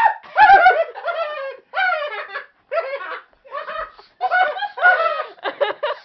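A man making bird calls into his cupped hands: a string of about ten short, warbling coos that waver up and down in pitch.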